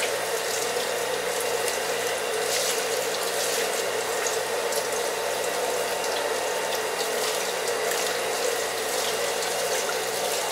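Water sloshing and splashing as whole raw ducks are rubbed and turned by hand in a plastic tub of water, over a steady rush of water.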